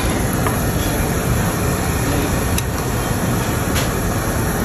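Steady rushing noise of the ventilation at a tabletop yakiniku grill, with two light clicks in the second half.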